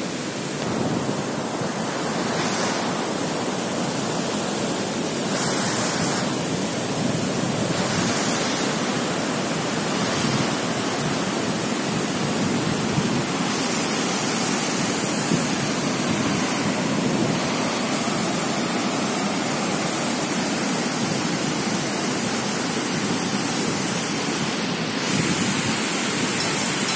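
Steady rush of water pouring from a dam outlet and over rapids in the river below, a constant even hiss without pauses.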